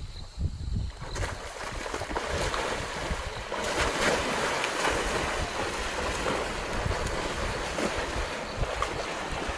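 Water splashing and churning as a kudu and lions thrash about in a river, loudest around the middle. Wind rumbles on the microphone in the first second.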